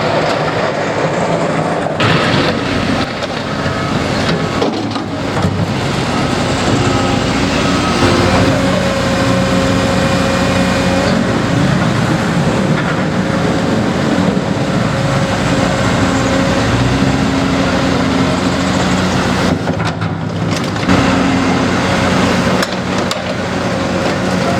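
Diesel engines of heavy construction machinery running steadily, their pitch changing now and then as the machines work.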